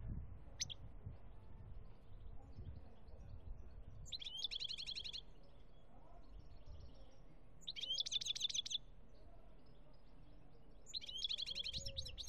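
European goldfinch singing: a brief high call just under a second in, then three short rapid trilled phrases, each about a second long, spaced three to four seconds apart.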